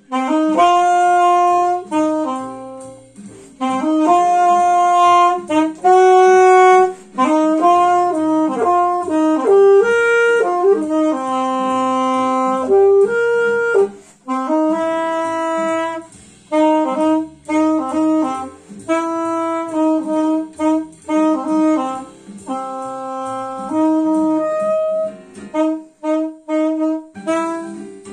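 Alto saxophone playing a jazz melody solo, in phrases of held notes with short breaks between them, turning to a run of short detached notes in the second half.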